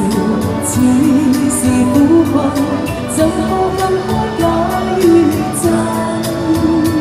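A woman singing a slow pop song into a microphone through a street PA speaker, over a backing track with a steady beat; her voice holds long, gliding notes.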